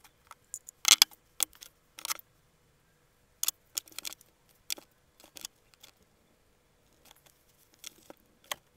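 Scattered light clicks and taps of painting at a desk: a paintbrush knocking against a glass water jar and a plastic paint palette. The taps come irregularly, with a pause of about two seconds after the middle.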